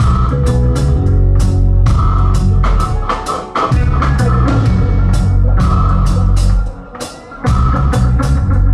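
Live roots reggae band playing: drum kit and bass guitar on a steady beat under a held keyboard-like chord. The bass and drums drop out briefly twice, about three and a half and seven seconds in, then come back in.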